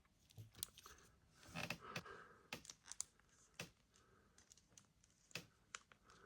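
Faint handling noises of a plastic action figure being moved and posed: a scatter of small sharp clicks with a few brief rustles.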